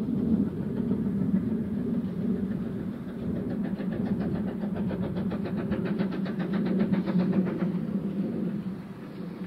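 Steam-hauled passenger train running past: a steady rumble, with a fast, even rhythmic beat from about three to eight seconds in.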